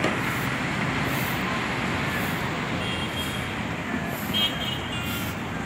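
Steady road traffic noise on a busy city street, with a few short high-pitched tones about three seconds in and again a little after four seconds.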